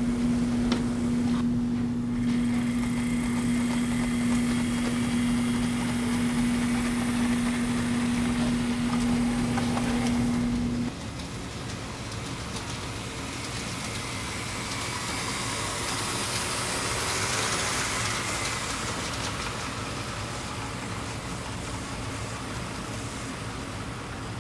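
HO-scale model trains running on the layout. A steady humming tone lasts about the first eleven seconds and cuts off abruptly. After that comes the rolling rumble of a string of model boxcars passing, swelling about two-thirds of the way in.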